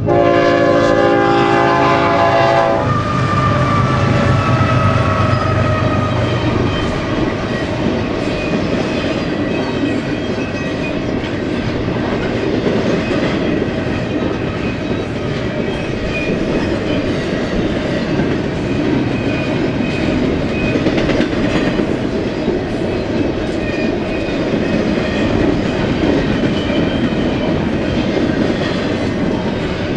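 A freight locomotive's horn sounds for about the first three seconds, warning at a grade crossing, then the freight train rolls past with a steady rumble of wheels on rail and clickety-clack over the rail joints.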